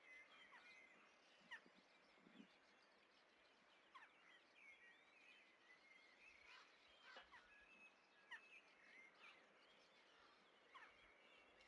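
Faint, scattered short chirps and calls of small birds over a quiet outdoor hiss.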